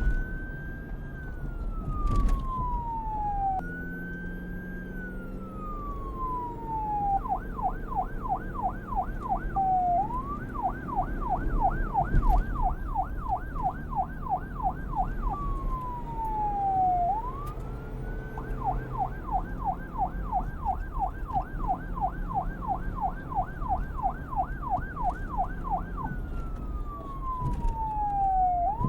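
Police car electronic siren switching back and forth between a slow wail, rising and falling over a few seconds, and a fast yelp of about four sweeps a second, over a low rumble. Two sharp knocks stand out, about two seconds in and about twelve seconds in.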